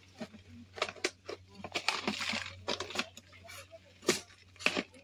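Clear plastic jar with a green screw lid being handled: a run of sharp clicks and knocks, with a short scraping rustle about two seconds in and a loud click about four seconds in as the lid is pressed shut.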